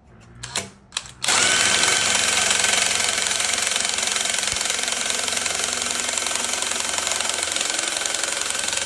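Cordless drill driving a double-head sheet-metal nibbler attachment, cutting through 25-gauge sheet metal. After a few light clicks it starts about a second in and runs steadily with a steady whine, stopping near the end.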